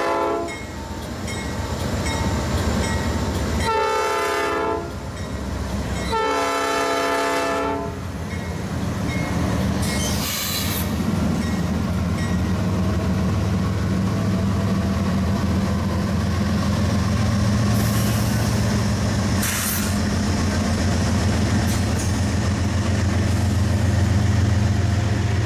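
Norfolk Southern diesel freight locomotives passing close by. The horn sounds: one blast ends just at the start, then a short blast about four seconds in and a longer one about six seconds in. After that the locomotive engines run with a steady low drone, and there are a few brief high squeals from the wheels on the rails.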